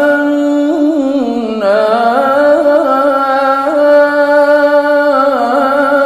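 A man's voice chanting Quran recitation in the melodic tajweed style. He sings one long drawn-out phrase, holding steady notes and ornamenting them with small turns up and down in pitch.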